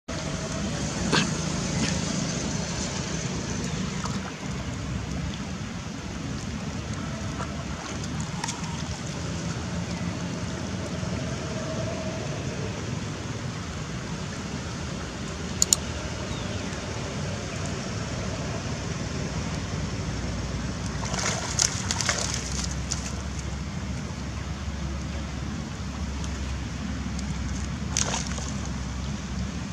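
Water sloshing and splashing as young monkeys swim and wrestle in a shallow pond, over a steady low outdoor rumble. A few sharper splashes or clicks stand out: one about a second in, a sharp one about halfway, a short cluster about two-thirds of the way through, and one near the end.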